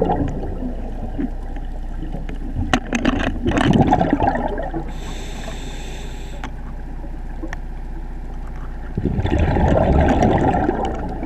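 Scuba diver breathing through a regulator underwater: gurgling rushes of exhaled bubbles about three seconds in and again from about nine seconds, with a hissing inhale in between. A steady low hum runs underneath.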